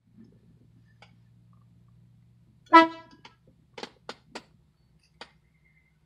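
150 dB air horn giving one short, loud blast about three seconds in, then four quick brief toots, heard from inside the vehicle's cabin over a faint low hum.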